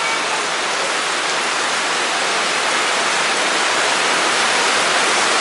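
Heavy rain pouring down, a loud, steady, even rushing hiss.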